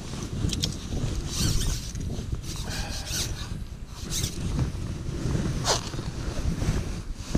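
Wind rumbling on the microphone, with several short bursts of rustling and scraping from hands handling fishing tackle and clothing.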